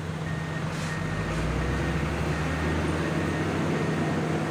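Diesel engine of the crane holding the excavator's upper body running steadily, with a low rumble swelling between about 1.5 and 3 seconds in. A repeated high warning beep sounds over it.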